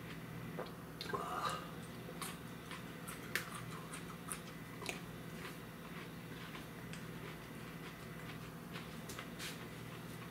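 A man chewing and biting whole fresh 7 Pot Primo chili pods: short wet crunches and mouth clicks, densest in the first five seconds and sparser after, over a steady low hum.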